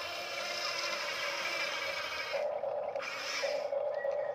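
Electric gear motors of a Huina radio-controlled excavator whining as the boom and bucket move. The whine changes about two and a half seconds in, as a different motor takes over.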